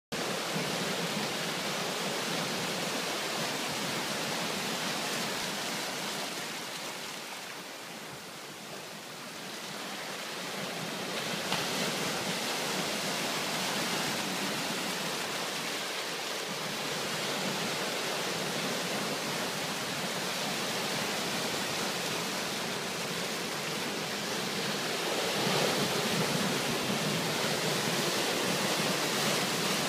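Sea surf breaking and washing over rocks: a continuous rush of water that ebbs about a quarter of the way in and swells again, loudest near the end.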